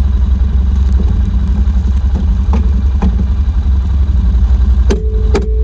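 Four-wheeler engine running steadily, with a few sharp clicks and knocks. A steady mid-pitched tone comes in near the end.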